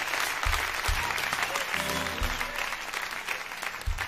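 Audience applauding, with soft instrumental music underneath: a few low bass notes and a brief chord. The clapping thins out toward the end.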